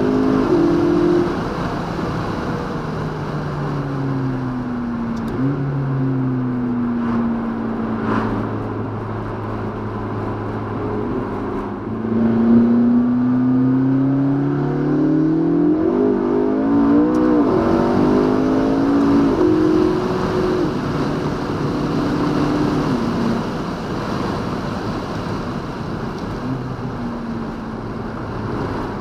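McLaren MP4-12C's twin-turbo V8 through its sports exhaust, heard from inside the cabin while driving: the engine note climbs under throttle, drops sharply at upshifts and sinks as the car eases off. The loudest climb comes about twelve seconds in, and the sound fades away near the end.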